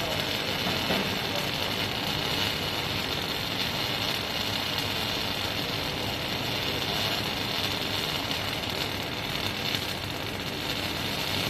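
Robotic arc welder's arc hissing and crackling steadily as it lays a weld.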